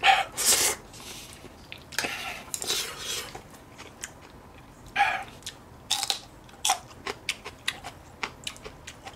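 Crunchy bites and chewing of a raw green chili pepper: loud crisp crunches, the loudest right at the start, then a quick run of short crunchy clicks near the end as it is chewed.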